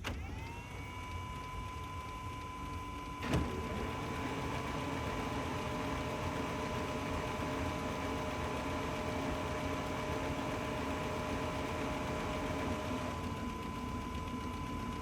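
OKI C650dn printer starting up after power-on. A motor whine rises in pitch and settles into a steady tone at the start, a sharp click comes a little over three seconds in, and then motors run steadily, with one lower tone stopping shortly before the end.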